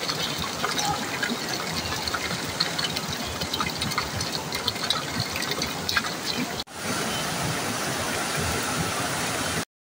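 Waterfall: a steady rush of falling and splashing water. It breaks off briefly about two-thirds through, comes back a little steadier, then cuts off suddenly just before the end.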